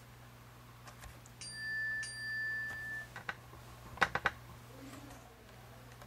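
Faint steady electrical hum, with one clean high-pitched tone held for about a second and a half, then a few light clicks.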